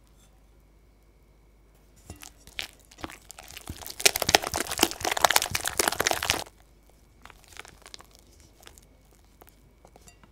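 Spatula beating egg into creamed butter and sugar in a glass bowl: rapid, wet, crackling strokes, loudest from about two to six and a half seconds in and stopping suddenly, then a few fainter strokes near the end.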